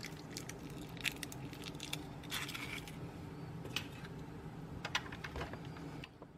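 An egg being cracked and opened over a mixing bowl of pie filling: a few light clicks and taps of eggshell against the bowl, over a low steady hum.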